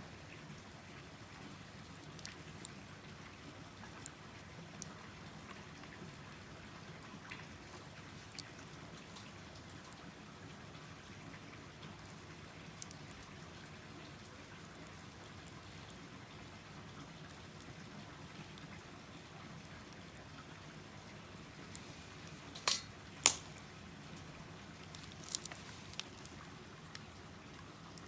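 Small wood fire burning in a wood stove: a soft steady hiss with scattered crackles and pops, and two sharp loud snaps half a second apart about three-quarters of the way through.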